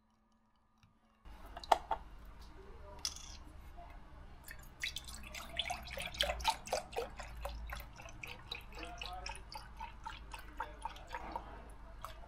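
Oat milk poured from a carton into a stainless steel milk jug, starting about a second in: a run of irregular splashes and glugs over a low steady hum.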